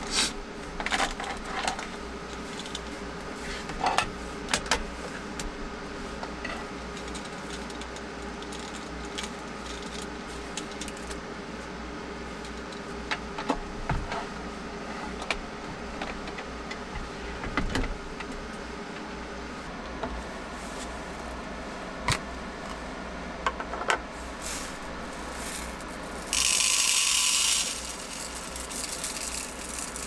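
Scattered clicks, knocks and rattles of objects being handled, over a steady hum. Near the end comes a loud hiss lasting about a second.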